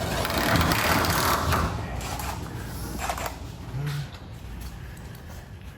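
Mechanical rasping and rattling from tool work on garage door hardware, loudest for the first two seconds, followed by a few sharp clicks.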